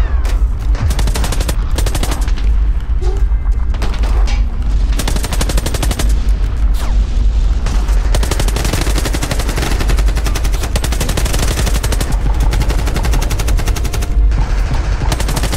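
Sustained rapid machine-gun and rifle fire in long bursts, many shots a second, over a steady low rumble.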